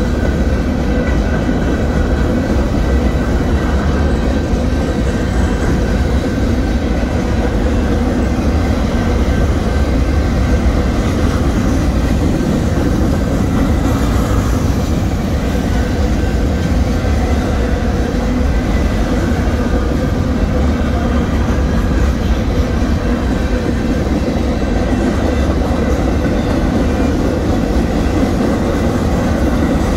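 Freight train boxcars rolling past at a grade crossing: a steady, unbroken rumble of steel wheels on the rails, heaviest in the low end.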